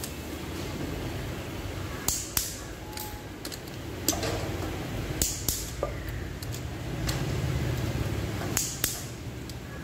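Click-type torque wrench tightening Tata Nano cylinder head bolts, giving sharp double clicks three times and a single click as each bolt reaches its set torque.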